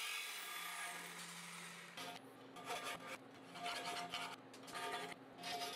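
Hand file rasping back and forth on the cut edges of a hole in steel plate, in quick strokes about two to three a second, starting about two seconds in.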